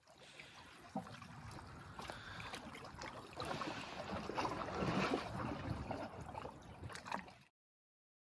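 Small lake waves lapping and sloshing against a shelf of shore ice, with gurgling and little splashes, louder in the second half, cutting off suddenly near the end.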